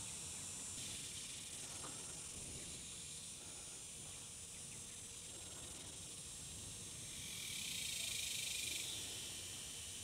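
Steady high hiss of background noise, swelling louder for a second or two near the end.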